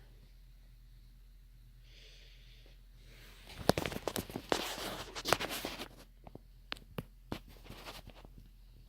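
Quorum Celtic ceiling fan running with a steady low hum. A few seconds in comes a burst of sharp clicking and rattling, followed by scattered single clicks.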